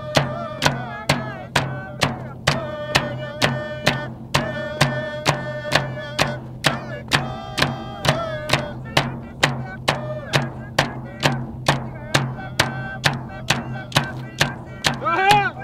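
Inuvialuit drum-dance song: large hand-held frame drums struck in a steady beat about twice a second, with a group singing over them.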